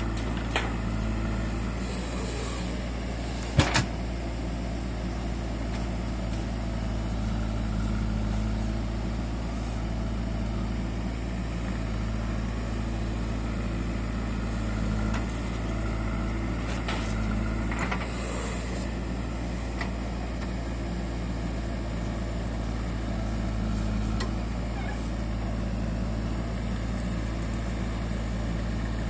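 Heavy diesel engine running steadily, with a few sharp knocks, the loudest about three and a half seconds in.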